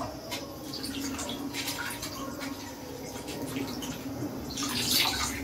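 Water sloshing and splashing in a plastic bowl as leafy greens are washed by hand, in irregular small splashes with a louder splash near the end.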